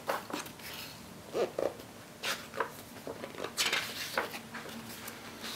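Pages of a paper booklet being turned by hand: several short rustles and flicks of paper.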